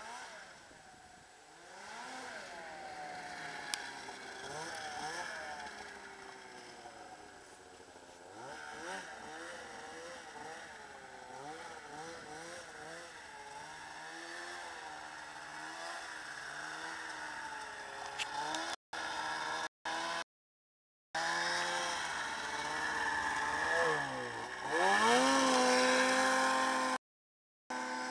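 Arctic Cat ZR600 snowmobile's two-stroke engine revving up and down again and again as the sled plows a fresh trail through deep powder. It grows louder as it nears and climbs sharply to a steady high pitch near the end. The sound drops out briefly a few times.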